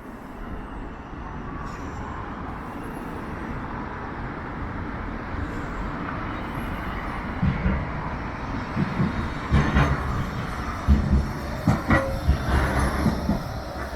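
A passing vehicle, its rumble growing louder through the first half, with irregular low thumps in the second half.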